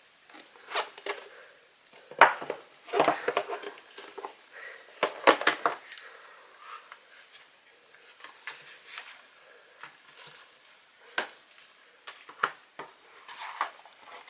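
Hands handling a hardcover cardboard CD album case on a wooden table: scattered taps, knocks and rustles as it is set down, its cover opened and the CD tray inside handled. The busiest clusters come about two and five seconds in.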